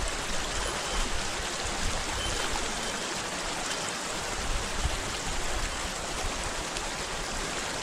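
Shallow rocky creek running over stones in riffles: a steady rush of flowing water.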